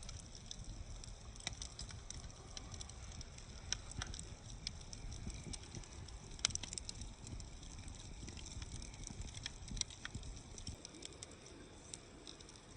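Wood campfire crackling, with irregular sharp pops scattered through, over a steady low rumble.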